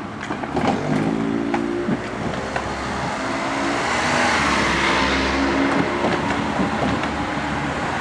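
Railway level-crossing alarm ringing on and on, its strokes coming at an uneven rhythm. A car goes past about halfway through.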